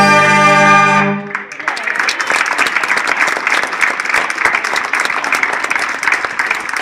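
Bersaglieri fanfare brass band holding a final chord that stops about a second in, followed by a crowd applauding.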